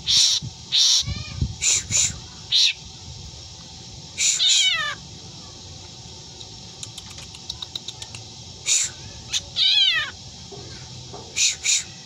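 Black drongo mimicking a cat: about ten short, loud meow-like and shrill calls, several falling in pitch, with a quick run of clicks about halfway through.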